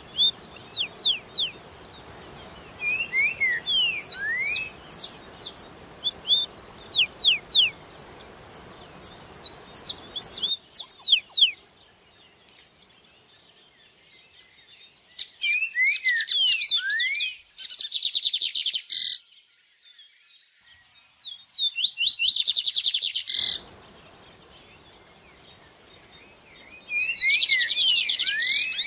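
Songbirds singing over a steady rush of stream water: short whistles that sweep down in pitch, and fast trills. The water sound cuts off abruptly about ten seconds in, leaving only the birds, and comes back just as suddenly about thirteen seconds later.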